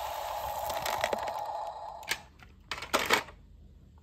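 Loose gravel and dirt pouring from the tipped bed of a model dump truck, a steady rushing hiss that stops about two seconds in. A few sharp clatters follow about three seconds in.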